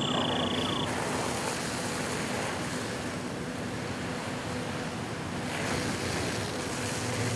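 Fire hose stream spraying hard onto a burning vehicle: a steady rushing hiss of water with spatter, over a faint steady low hum. A steady high tone stops abruptly about a second in.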